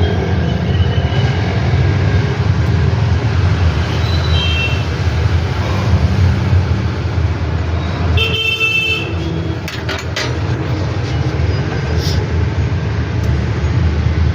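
Motor vehicle engine running steadily in street traffic, with a vehicle horn tooting once, briefly, about eight seconds in.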